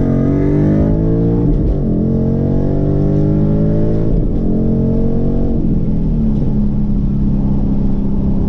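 Ford Mustang S550's 5.0 V8, heard from inside the cabin, revving up under acceleration. It upshifts through the MT82 six-speed manual about one and a half, four and five and a half seconds in, then settles to a steady cruise.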